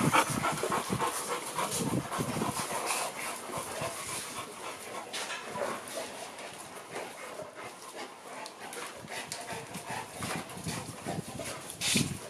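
Several bullmastiffs panting and whining, eager for treats, with many short irregular sounds; busiest in the first few seconds, with a brief louder noise near the end.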